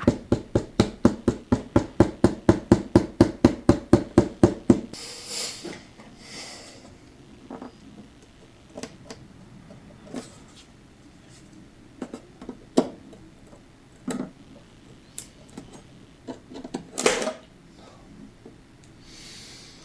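Hand work on a cracked wooden guitar top while an old glued crack repair is separated. First comes a quick even tapping, about five taps a second, for roughly five seconds. Then a short scrape, then scattered small clicks and knocks.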